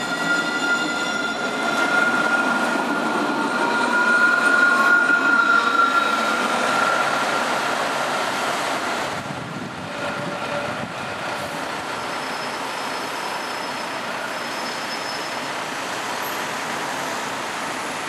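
Alstom Citadis 302 electric tram passing close by, with a high steady whine and a rising whine over rolling noise. About nine seconds in, this gives way to a quieter, steady street noise.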